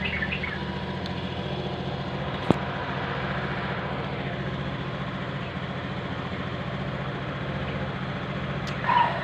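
Vehicle engine idling steadily, freshly started after electrical work on its lights and horn. A single sharp click about two and a half seconds in.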